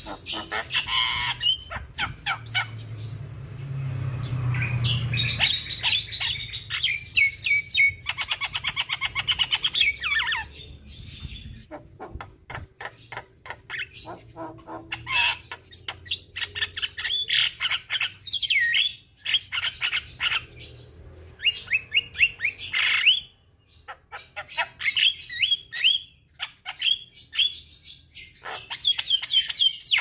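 Javan myna singing a long, varied song of harsh chattering calls, clicks and whistled notes, with a fast, even rattle about eight seconds in.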